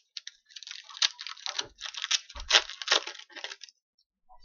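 Hockey card packs and cards being handled: a rapid crackling and rustling for about three and a half seconds that stops shortly before the end, with a couple of dull thumps in the middle.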